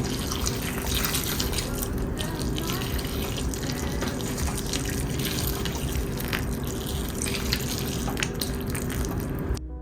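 Steady sound of running or moving water with scattered small clicks, cutting off suddenly near the end.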